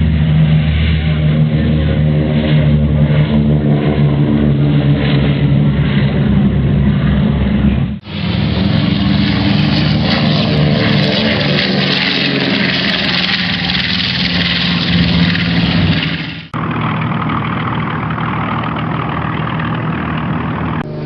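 Airplane engines running steadily, in three spliced recordings that change abruptly about 8 seconds and 16 seconds in.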